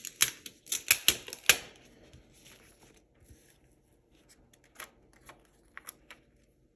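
Glossy sticker sheet and paper being handled on a planner page: a burst of crisp rustling and crinkling in the first second and a half, then a few light ticks as a paper sticker is handled.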